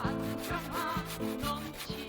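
Hand saw cutting wood in repeated back-and-forth strokes, over background music with a wavering melody.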